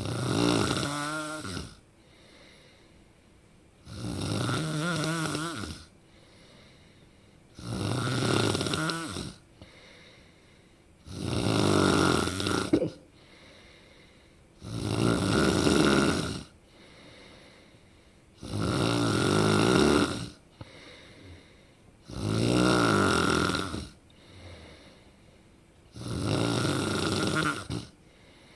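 A person snoring: eight loud snores in a steady rhythm, about one every three and a half seconds, each lasting under two seconds, with faint breaths between them.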